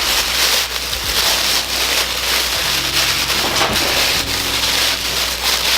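Packaging being handled and unwrapped around a yo-yo: continuous rubbing and rustling.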